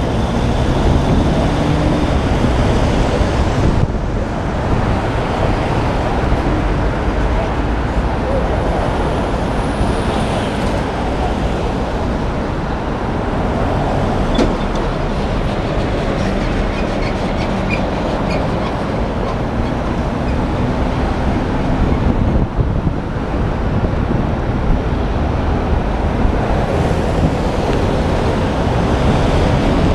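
Steady highway driving noise from a moving car: a continuous rumble of tyres on the road mixed with wind, as other cars and a box truck pass alongside.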